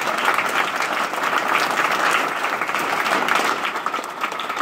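Audience applauding: a room full of people clapping, dense and steady, thinning a little near the end.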